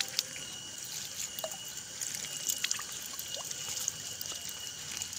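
A thin stream of water trickling and splashing over freshly picked winged beans and leafy greens as they are rinsed by hand, with small scattered drips and taps.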